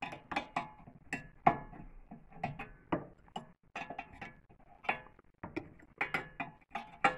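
A 17 mm steel spanner clicking and clinking on a rear brake caliper bolt as it is repeatedly refitted and turned in a cramped space. The clicks are sharp, irregular and metallic, about two or three a second, each with a short ring.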